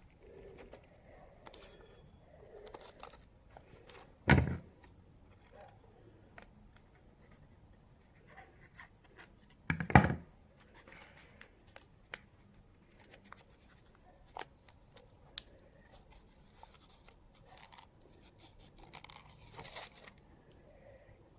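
Light handling sounds on a work table: scattered small clicks, rustles and scrapes of materials being picked up and worked by hand, with two louder knocks about four seconds in and about ten seconds in.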